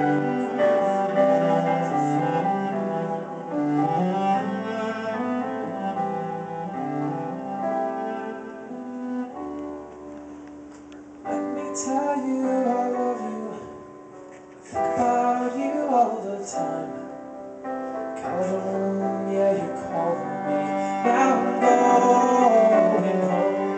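Live cello and Yamaha stage piano playing a slow ballad, with the cello bowing sustained notes over piano chords. A man sings a line in the middle of the passage and again near the end, after a softer stretch.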